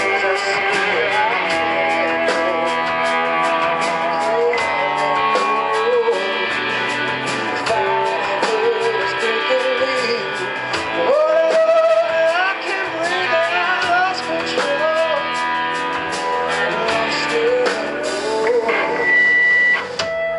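Live blues-rock band playing: electric guitars over drums with steady cymbal strokes, and from about halfway a melodic line bending and wavering in pitch.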